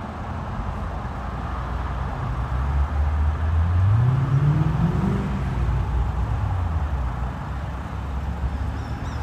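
Road traffic: cars driving up the road past the microphone, with tyre noise. One vehicle's engine rises in pitch as it accelerates past, loudest about four seconds in.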